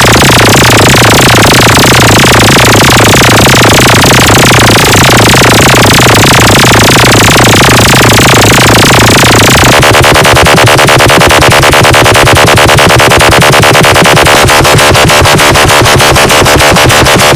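Loud, heavily compressed electronic DJ track with a steady low bass; about ten seconds in it switches to a fast, dense beat.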